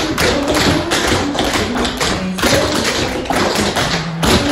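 Tap shoes striking the floor in a fast, dense tap-dance routine, the metal taps clicking many times a second, with music playing behind.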